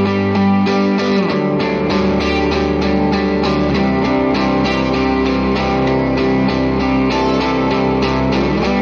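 Background music: a guitar-led track with a steady, even beat, its bass line changing about a second in.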